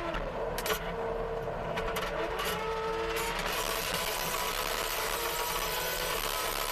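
CASE TR270B skid steer's diesel engine running steadily under load while driving a rototiller attachment, with a few short knocks in the first three seconds.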